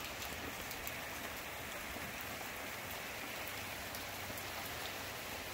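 Steady rain falling: an even, continuous hiss with scattered faint drop ticks.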